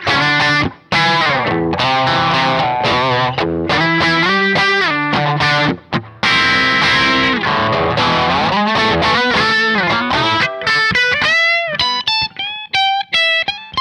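Seven-string multiscale electric guitar played with two of its series-wired single-coil pickups out of phase, giving a thin, quacky tone. Chords and riffs for most of it, then single notes with string bends near the end.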